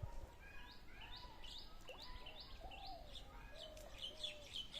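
Birds calling: a run of short, high, rising chirps repeated two or three times a second, quickening near the end, with some lower calls mixed in, over a steady low rumble.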